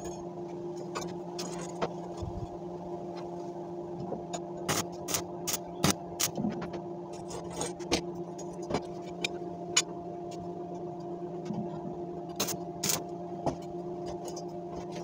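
Steel-angle grill frame being handled and set on the work bench: scattered sharp metal knocks and clanks over a steady electrical hum.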